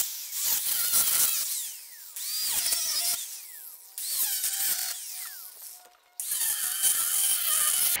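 Porter-Cable angle grinder's abrasive disc cutting into the steel shell of a hermetic rotary air-conditioner compressor. It comes in about five separate stretches that start and stop abruptly.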